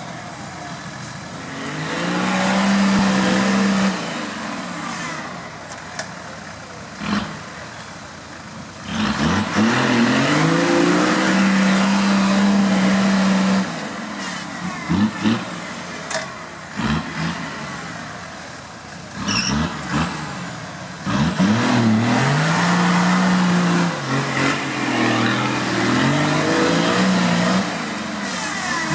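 Off-road 4x4's engine revving hard in repeated pulls: the pitch climbs, holds for a few seconds and drops back to a lower note, several times over, with occasional short knocks.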